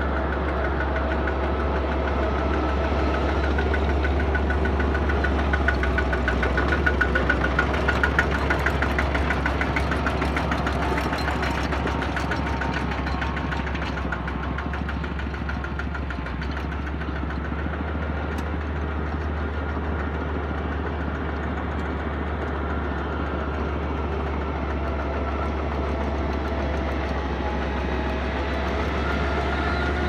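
Two-wheel walking tractor's single-cylinder diesel engine running steadily as it pulls a wooden trailer cart, a little louder for a few seconds early on.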